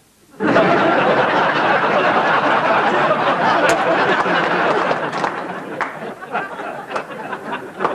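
A large theatre audience laughing, starting suddenly about half a second in and dying away over the last few seconds.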